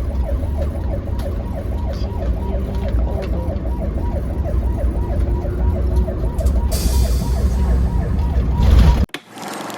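Ambulance siren sounding in a fast yelp, its pitch rising and falling about five times a second, over the low rumble of the moving vehicle. The sound cuts off suddenly near the end.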